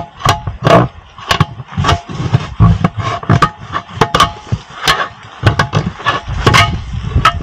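Repeated metal-on-metal blows on a steel split-ring wheel rim, about two a second and unevenly spaced, several leaving a short ringing tone: the lock ring being worked loose to get the tyre off the rim.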